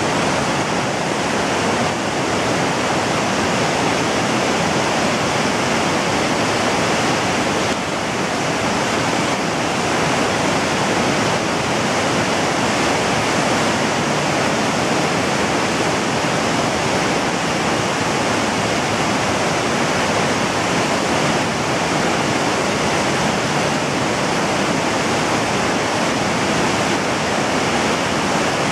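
Whitewater of a fast mountain river rushing over rocks: a loud, steady, unbroken rushing noise.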